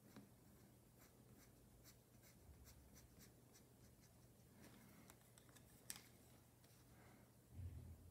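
Colored pencil scratching on paper in many short strokes and taps, faint, with one sharper click about six seconds in.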